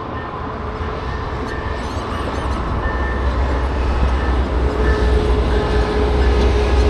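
A train rumbling along the rails, growing steadily louder as it approaches, with a steady whine joining in about two-thirds of the way through.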